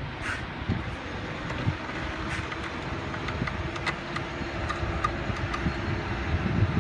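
Heavy truck's diesel engine running at low revs, a steady low rumble, as a truck-and-drawbar-trailer rig creeps along, with scattered faint clicks.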